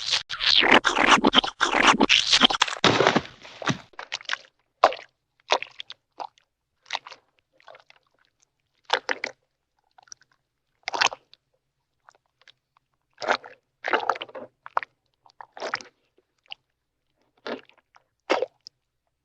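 Hanna-Barbera cartoon splat sound effects, wet squishy impacts played one after another. They come thick and overlapping for the first few seconds, then as separate short splats with gaps of about a second or two between them.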